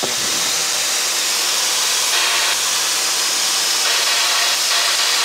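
Steady rushing cabin noise of a GoGetAir G750 light aircraft in flight: its Rotax engine and the airflow make an even loud hiss over a faint low hum.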